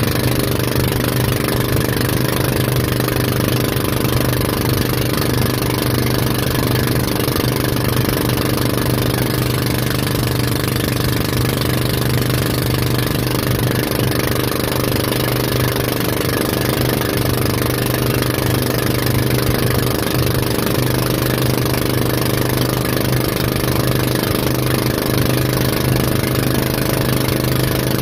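Tow boat's engine running steadily at speed, a constant low hum under the rush of water and wind.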